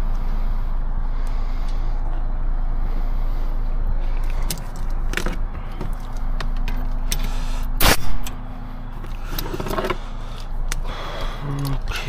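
A vehicle engine idling steadily, with scattered clicks and handling noises. A single sharp knock, like a door shutting, comes about eight seconds in. After it the steady hum drops away for a few seconds and returns near the end.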